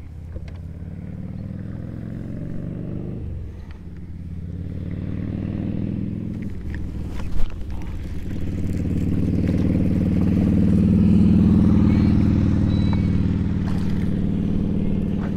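Motorboat engine running and speeding up twice: its pitch climbs, drops about three seconds in, then climbs and grows louder again before holding steady. A single sharp knock about seven seconds in.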